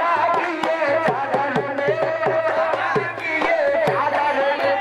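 Singing to a hand drum keeping a steady beat, the drum's deep strokes sliding down in pitch after each hit.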